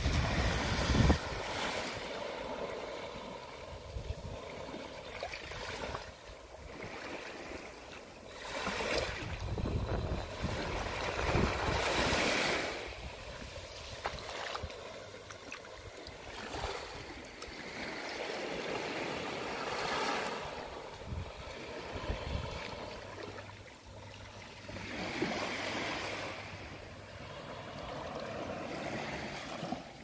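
Small ocean waves lapping onto a sandy shore. Each wash swells and fades over a few seconds.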